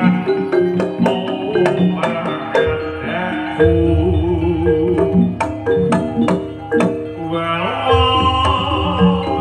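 Javanese jaranan music: hand-drum strokes over short ringing gamelan metallophone notes, with a wavering melody line and a deep held tone through the middle.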